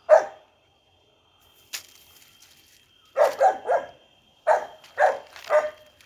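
A dog barking: one bark at the start, then two quick runs of three barks each.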